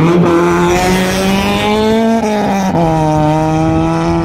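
Rally car engine at high revs, accelerating hard. Its pitch climbs for about two seconds, drops at a gear change, then holds steady.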